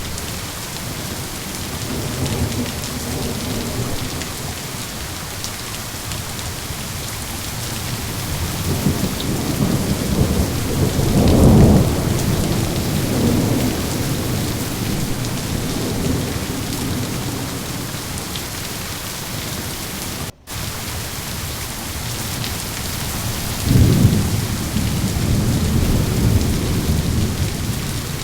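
Steady heavy rain with rolling thunder: low rumbles come and go, swelling to a loud peak about eleven seconds in and another about twenty-four seconds in. The sound cuts out for a split second about two-thirds of the way through.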